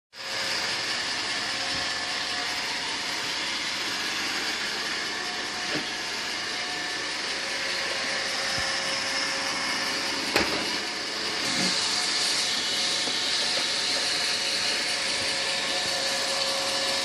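Roomba robot vacuum running: a steady whir with a high hiss, and a sharp knock about ten seconds in.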